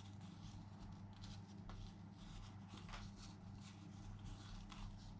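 Faint rustling and scratching of sticky energy balls being rolled in sesame seeds in a bowl, over a steady low electrical hum.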